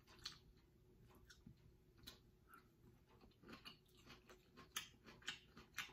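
Faint eating sounds: soft, irregular mouth clicks and smacks of chewing, a few a second, growing busier in the second half.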